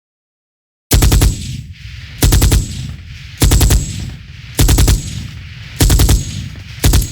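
Machine gun firing six short bursts of rapid shots about a second apart, starting about a second in, each burst trailing off in an echo.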